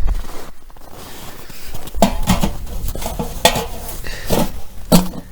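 Irregular crunching strokes in snow, starting about two seconds in, over a low rumble of wind on the microphone.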